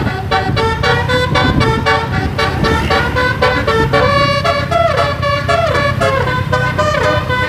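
A bus's Basuri telolet horn playing a quick melody of stepped notes, with a few sliding notes, over the bus engine's low steady running.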